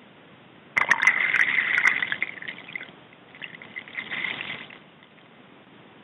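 Water splashing and rushing over a camera strapped to a penguin's head, in two loud bursts: the first sets in suddenly about a second in, the second comes about halfway through.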